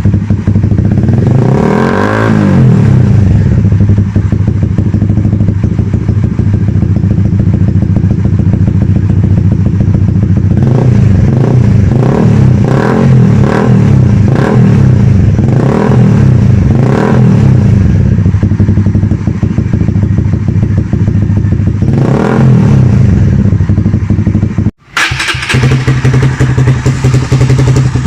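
Motorcycle with an aftermarket exhaust idling and revved in a string of short throttle blips, each rising and falling quickly. Near the end the sound cuts out for an instant and the idle resumes.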